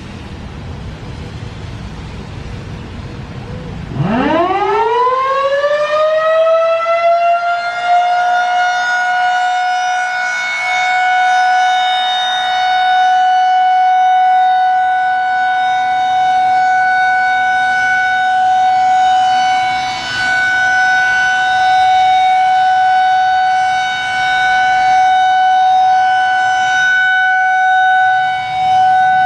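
Federal Signal 2001-SRNB outdoor warning siren winding up about four seconds in, its pitch rising quickly and then settling into a steady alert tone. The tone swells and dips in loudness as it sounds.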